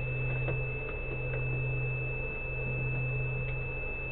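A steady low hum with a thin, unbroken high-pitched whine over it: the whine is the power inverter's low-input-voltage alarm, sounding because the battery feeding it is running low.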